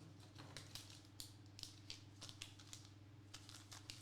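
Faint small clicks and rustles of trading cards being handled and slid apart, scattered irregularly over a low steady hum.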